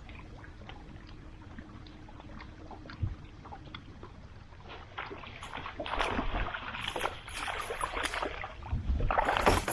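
Water splashing and sloshing around a fishing boat on choppy lake water. It is quiet and even at first, then turns into irregular splashing from about halfway through, loudest near the end.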